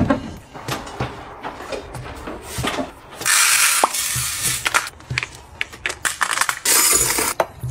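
A run of small clicks and taps as a cabinet door is opened and plastic storage containers are handled. About three seconds in comes a short rattling hiss of dry grains, black rice, poured from a plastic scoop into a plastic tray, followed by more light taps as dried fruit pieces are dropped in.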